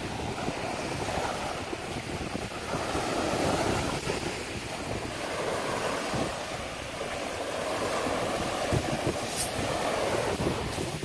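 Small waves washing in and out over a sandy shore in slow swells, with wind rumbling on the microphone.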